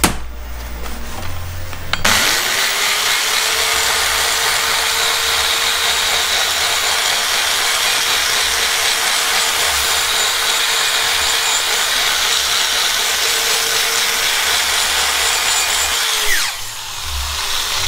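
High-speed hand grinder porting a Mazda F2 cylinder head, taking metal out of the port. It spins up about two seconds in, runs at a steady high pitch with a hiss, and winds down near the end.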